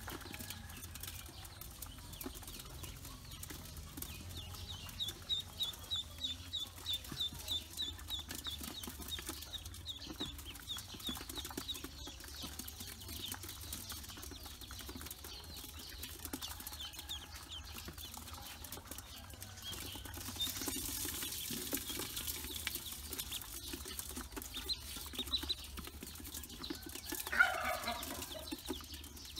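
Ducklings peeping, with a quick run of high, repeated peeps for several seconds and scattered peeps later. Near the end comes one louder, lower call.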